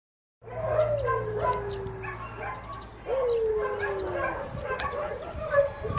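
Several dogs barking and yipping together, with two long howls that fall in pitch, one near the start and one about three seconds in.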